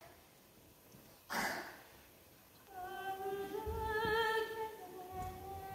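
A woman's voice singing a slow, wordless tune on long held notes with a slight waver, starting about two and a half seconds in and rising then falling back in pitch. A short noise, like a cough or rustle, comes about a second before it.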